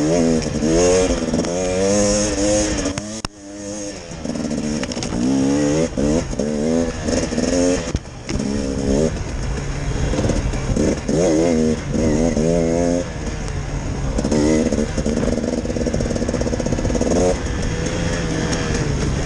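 Enduro dirt bike engine revving up and down as the throttle is worked, its pitch rising and falling about once a second. It drops away suddenly for a moment about three seconds in, and holds a steadier pitch for a few seconds near the end.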